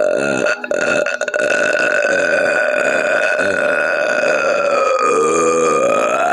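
A woman belching, one long drawn-out belch with a slowly wavering pitch that barely breaks, dipping briefly about a second in.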